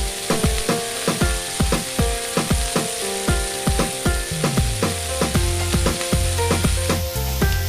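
Chopped onion, capsicum and tomato sizzling in hot oil in a frying pan, under background music with a steady beat; a deep bass line joins the music about halfway through.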